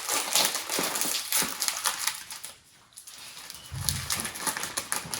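Plastic chip bag crinkling as it is opened and handled, dense and crackly for about two seconds, then stopping. A short low hum follows about four seconds in.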